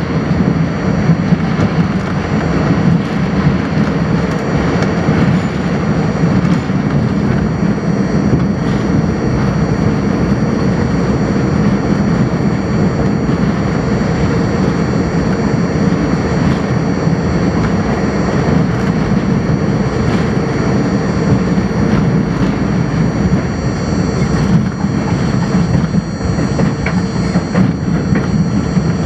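R42 subway train running at speed, heard from inside the front car: a loud, steady rumble of wheels on rail and running gear, with a steady hum and thin high whines over it.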